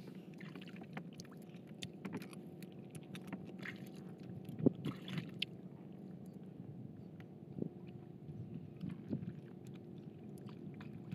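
Gill net being hauled by hand over the side of a small boat: faint drips and scattered light knocks, a few louder ones near the middle, over a steady low drone.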